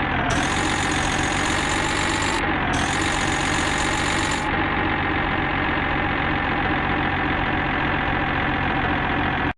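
Heavy machine engine running steadily at idle, with a high hiss over it that drops out briefly twice and stops about halfway through; everything cuts off abruptly at the end.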